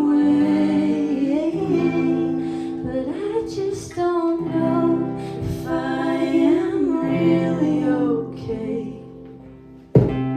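Live acoustic music: a woman singing long held notes over acoustic guitar. The music quietens near the end, then a sharp guitar strum comes in.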